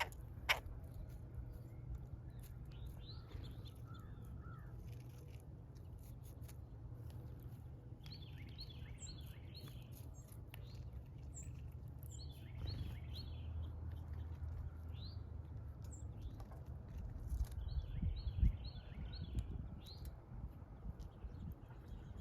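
Small birds chirping: several bursts of short, quickly repeated high chirps, over a low steady rumble.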